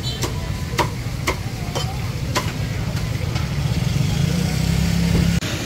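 Busy outdoor market ambience: a steady low rumble with a run of sharp clicks about twice a second in the first half. Near the end a low engine-like hum builds, then cuts off suddenly.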